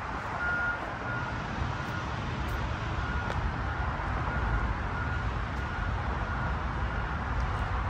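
Steady low rumble of distant city traffic, with a faint short high beep repeating roughly twice a second that stops about six and a half seconds in.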